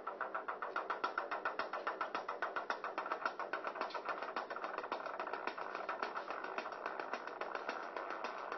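Korg Monotribe analog synthesizer playing a buzzy tone chopped into rapid, even pulses, several a second, at a steady level.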